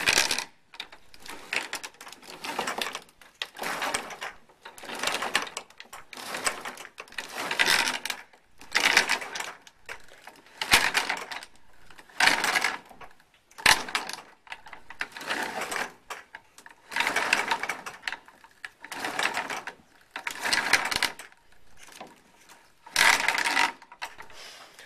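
Homemade boat steering gear creaking as the wheel is swung back and forth: the cable-wound PVC drum turning dry in its housing, about one creak a second. The gear is in need of grease.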